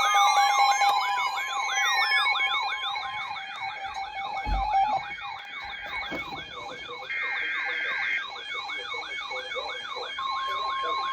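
Several electronic sirens sounding a fast yelp together, each sweeping up and down about three times a second, over a steady tone for the first few seconds. About seven seconds in there is a one-second data-like chirp. Near the end a steady alert tone starts, like a weather-radio alert tone.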